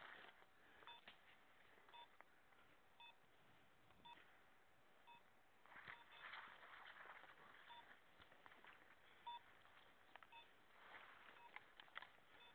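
A setter's beeper collar giving a faint, short electronic beep about once a second: the point-mode signal that the dog is standing on point. Brush rustles now and then between the beeps.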